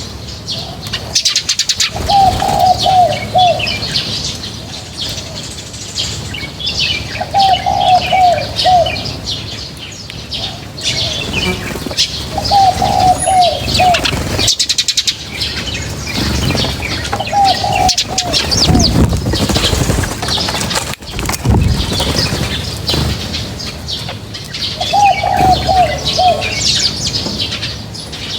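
Many small birds chirp and twitter continuously, with wings fluttering. A dove coos a short phrase of falling notes about every five seconds, five times in all.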